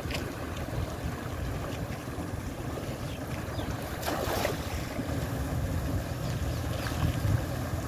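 Water rushing steadily out of a culvert into a small irrigation canal, with wind rumbling on the microphone. About four seconds in, a cast net splashes down onto the water.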